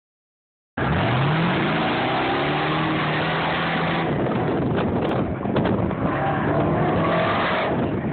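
Lowered classic pickup truck's engine accelerating hard off the start of an autocross run. Its pitch climbs over the first second, holds steady for a few seconds, then climbs again near the end as the truck pulls away through the course.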